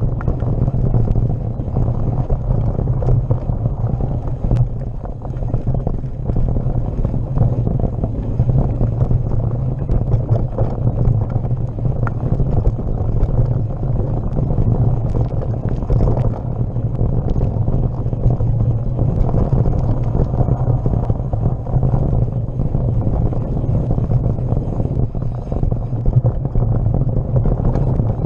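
Mountain bike rolling along dirt singletrack: a steady low rumble of wind buffeting the microphone and trail vibration, with tyre noise and a few brief rattles and clicks from the bike.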